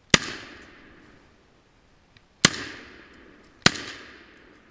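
Three gunshots from a hunting gun, each followed by an echo that dies away over about a second: one near the start, another about two seconds later and a third about a second after that.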